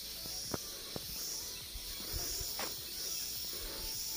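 Insects buzzing in the surrounding tropical forest, a high steady hiss that swells and fades, with a few soft footsteps on the paved path.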